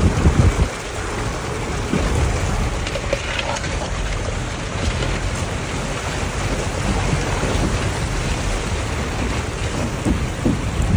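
Four-wheel drive wading through a shallow river ford: water splashing and rushing against the tyres and bodywork over the low engine drone, with a louder splash in the first second.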